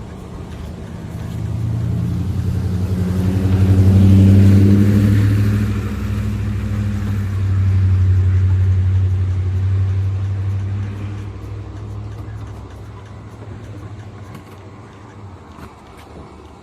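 A car engine running, swelling to two loud peaks a few seconds apart and then fading away.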